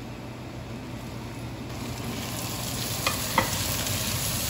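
Chopped onions sizzling as they fry in hot oil with curry leaves in a nonstick pot, stirred with a spatula that knocks against the pan twice about three seconds in.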